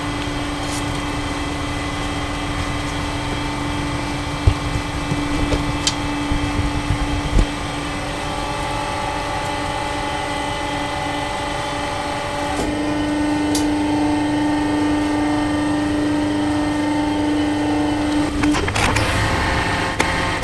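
Home-made hydraulic press's pump running with a steady hum, with a few knocks early on as wax chunks are handled. About twelve seconds in the hum gets louder. Near the end it stops and gives way to crackling as the candle wax is crushed between the plates.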